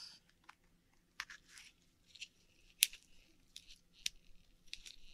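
Akoya oyster being shucked by hand to get at its pearl: scattered small clicks and brief crunchy, wet scrapes of shell and flesh, with one sharper click about halfway through.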